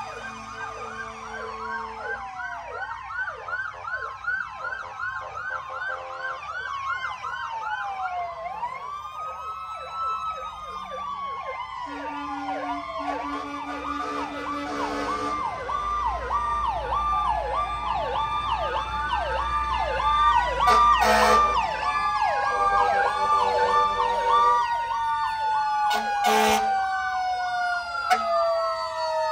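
Sirens of several fire trucks sounding together: fast yelps and slower wails overlap, with steady horn tones breaking in now and then. Near the end one siren slides slowly down in pitch.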